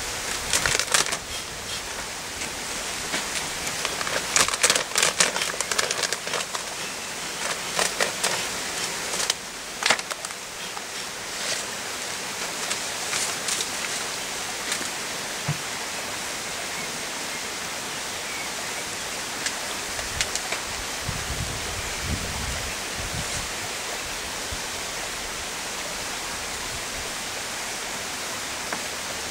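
A beekeeper smoking an open beehive with a bellows smoker: a run of sharp clicks and knocks in the first ten seconds over a steady hiss.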